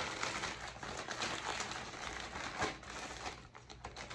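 Plastic mailer bag crinkling and rustling as hands handle and open it, a dense run of crackles that eases off after about three seconds.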